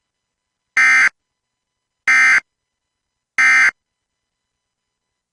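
US Emergency Alert System end-of-message data bursts: three identical short buzzing bursts about 1.3 seconds apart. They are the SAME digital code that marks the end of an alert broadcast.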